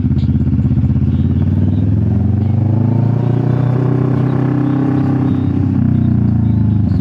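A CF Moto 650NK's parallel-twin engine running through an SC Project aftermarket exhaust, heard while riding. It starts with a choppy, fast-pulsing low note, rises in pitch as it pulls for a couple of seconds, then falls away again as it slows near the end.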